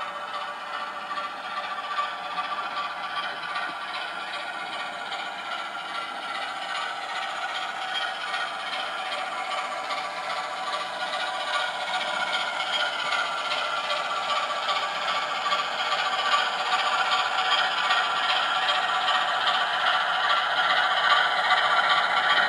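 Model railway locomotive running along the track: a continuous rattling clatter of wheels and mechanism over a steady droning hum, slowly growing louder as it comes nearer.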